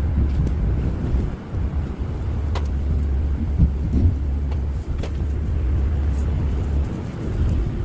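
Truck engine and road noise while driving: a steady low rumble that eases off about seven seconds in.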